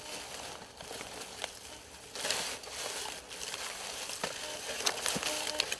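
Dry leaf litter crunching and rustling underfoot and under a metal detector's coil as it is walked and swept over the forest floor, with scattered sharp crackles.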